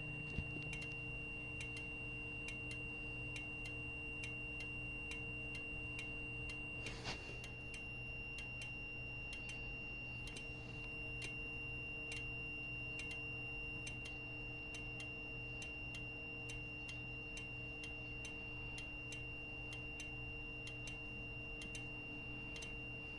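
Simplex 4903-series fire alarm strobes ticking sharply as they flash, about twice a second, over a steady high-pitched tone, with no horn sounding. A brief knock comes about seven seconds in.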